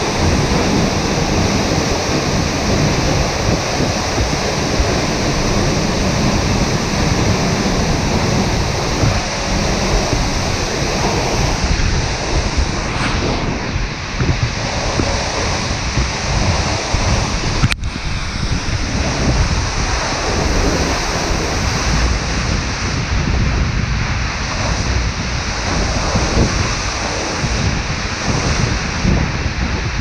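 Steady roar of Seljalandsfoss waterfall close by, its water crashing into the plunge pool, with gusts of wind and spray buffeting the microphone. One sharp click about eighteen seconds in.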